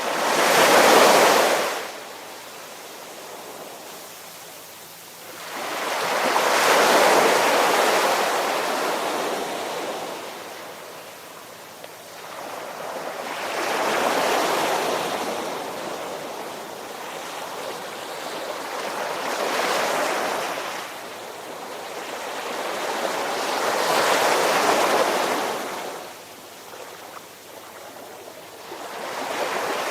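Ocean surf: waves washing in one after another, five surges that swell and fade every five to seven seconds.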